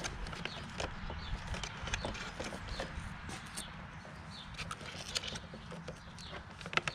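Light clicks and rustles of a motorcycle wiring harness and its plastic connectors being handled and sorted, scattered unevenly with a sharper pair of clicks near the end, over a steady low background rumble.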